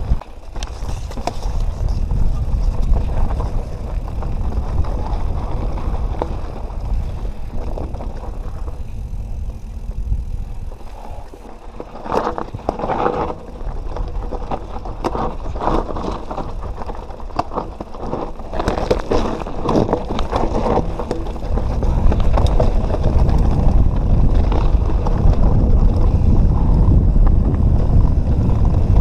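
A Canyon Nerve 27.5 mountain bike ridden along a trail: wind rumbling on the helmet camera's microphone, with the bike knocking and rattling over rough ground in the middle and the rumble getting louder in the last few seconds.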